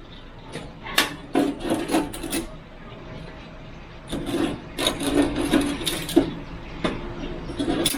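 Cooked chicken strips being taken out of the cooker: a string of sharp knocks and scrapes, around a dozen, as the pieces are moved.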